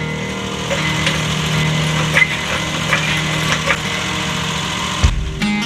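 Single-cylinder engine of a CFMOTO CForce 500 ATV idling steadily, with a few light knocks over it; the running sound stops about five seconds in with a low thump.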